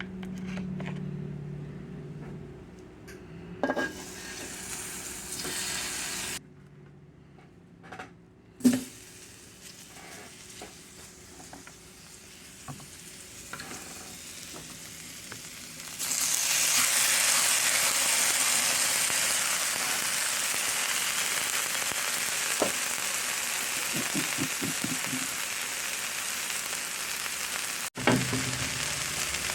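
Food frying in a hot pan: a loud sizzle starts suddenly about halfway through and keeps on steadily, with light stirring clicks. Before it, scattered knocks and clicks of kitchen utensils.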